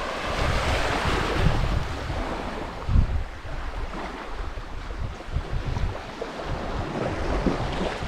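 Wind gusting on the microphone over the wash of small waves on the shore.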